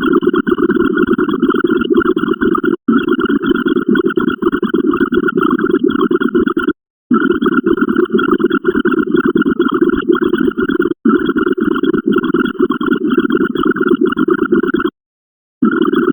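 Rough, crackling rumble sound effect played in blocks of about four seconds, each cut off by a short silent gap, so the same clip seems to restart again and again.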